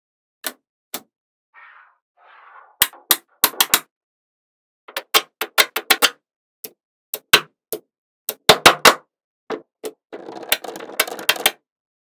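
Small magnetic balls clicking sharply as they snap onto one another, one at a time and in quick runs. A soft rustle comes early on, and a longer rattle of many balls about ten seconds in.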